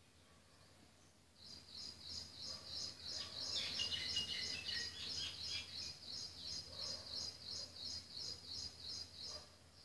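A small bird chirping over and over in quick, evenly spaced high chirps, about three a second, for most of the stretch. A few lower chirps join in about halfway.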